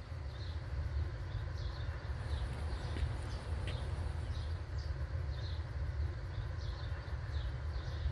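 Small birds chirping, short high chirps repeating about every half second, over a steady low rumble.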